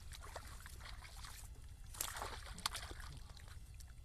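Hands sloshing and splashing in shallow muddy water, with a louder splash about two seconds in and a sharp click shortly after.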